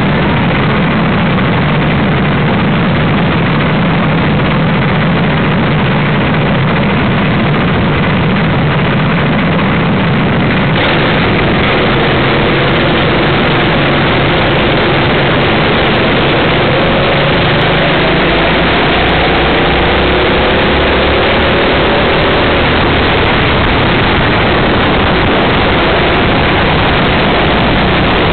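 Go-kart engines running on the grid, then accelerating away about eleven seconds in with a rising engine note, heard onboard through a small camera's microphone under a loud rushing noise.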